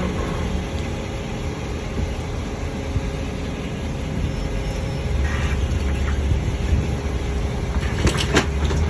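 A vehicle engine running steadily with a low rumble, with a few sharp clicks near the end.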